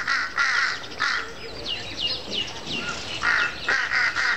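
Jungle crows cawing as they mob a wild cat: a run of caws at the start, a single one just after a second in, and another quick run of three near the end. Between them, a smaller bird gives several short falling chirps.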